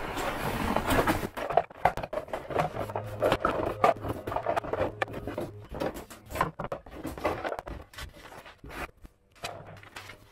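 Cardboard scraping as an inner tray slides out of its box, then hollow plastic parts bins being handled and set down with irregular light clacks and knocks.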